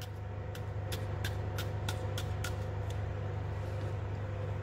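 About eight quick, sharp clicks in the first two and a half seconds: a pointed utensil pricking holes into a raw potato half. A steady low hum runs underneath.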